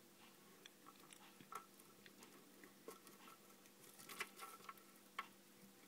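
Near silence: room tone with a faint steady hum and scattered faint clicks and ticks, a small cluster of them about four seconds in.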